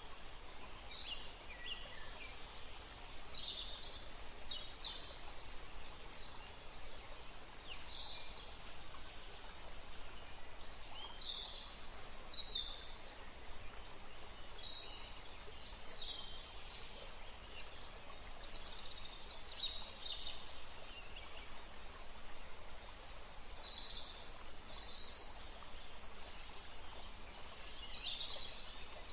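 Several birds chirping with short, quick calls, scattered irregularly over a steady background hiss.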